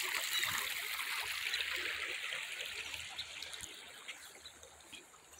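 River water flowing: a steady rushing hiss that grows fainter toward the end.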